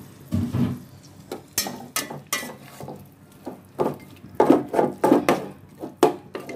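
Spatula stirring chunks of spice-coated beef in a pot, with irregular knocks and scrapes against the pot, busiest in the second half.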